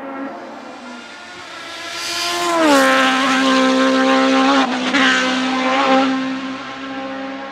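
Gloria C8P Evo's Suzuki Hayabusa inline-four motorcycle engine at high revs, growing louder as the car nears. About two and a half seconds in its pitch drops steeply as the car slows and changes down for a hairpin, with a few short blips of revs, then the sound fades as it goes past.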